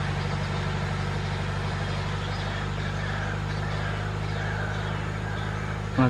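A steady low mechanical hum, like an engine running at a constant idle, holding unchanged throughout.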